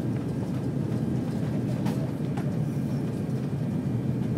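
Steady low rumble of engine and airflow noise heard inside an airliner cabin on approach to landing, with a couple of faint clicks about two seconds in.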